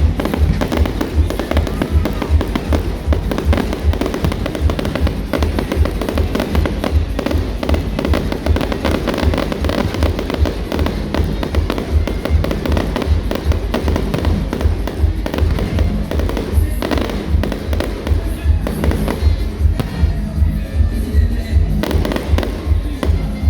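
Fireworks crackling and banging over loud music with a heavy, steady bass beat.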